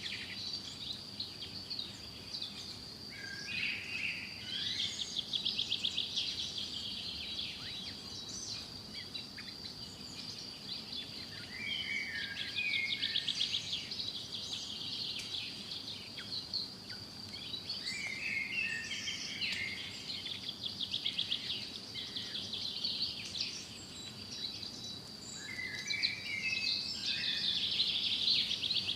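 Songbirds singing and chirping, with a fast trilled phrase repeating about every seven to eight seconds and scattered lower chirps between, over a steady high-pitched whine.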